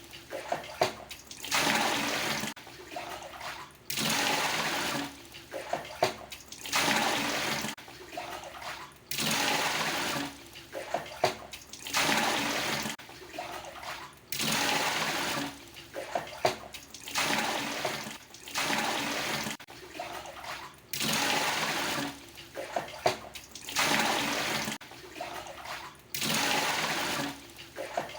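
Water dipper scooping from the water tub of a traditional Indonesian bathroom and pouring it out, over and over: a short splashy scoop, then a pour lasting about a second, roughly once every two and a half seconds.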